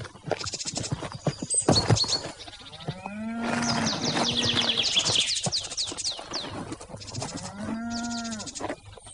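A cow mooing twice, two long calls that rise and fall in pitch, the first about three seconds in and the second near the end, while songbirds chirp throughout. A sharp knock sounds about two seconds in.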